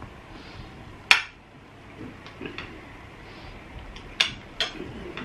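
Knives and forks clinking and scraping on ceramic dinner plates as pork chops are cut and eaten: one sharp clink about a second in, lighter taps after it, and two more clear clinks near the end.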